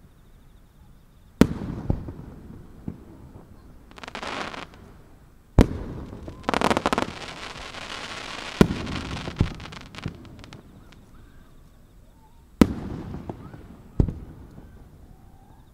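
Aerial firework shells bursting: five sharp booms with a rumble trailing after each, about 1.5, 5.5, 8.5, 12.5 and 14 seconds in. There is a short hiss about 4 seconds in and a dense stretch of rapid crackling from about 6 to 10 seconds in.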